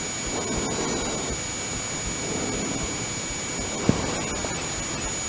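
Steady hiss with a constant high-pitched electronic whine, the unexplained beeping noise the investigators trace to an old machine they say has no power; one sharp click about four seconds in.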